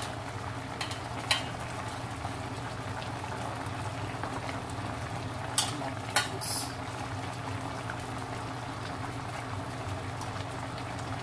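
Stainless pot of balbacua beef stew boiling on a stove, a steady bubbling over a low steady hum. A few sharp taps sound about a second in and again around five to six seconds in, as black beans are added to the pot.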